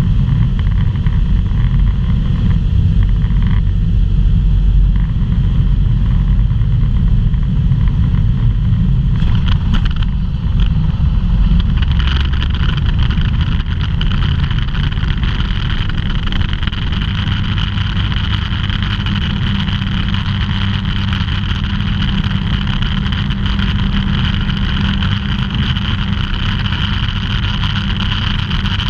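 Ultralight aircraft's engine and propeller droning steadily, heard from inside the cabin with rushing air. About twelve seconds in, a higher hiss comes up stronger over the low drone.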